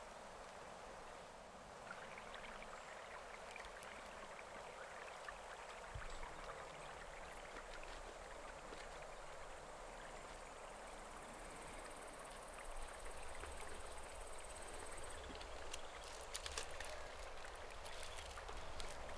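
Faint, steady rush of a forest stream, with a faint high trill for a few seconds midway. Near the end, aluminium foil crinkles in short crackles as a foil-wrapped sandwich is handled.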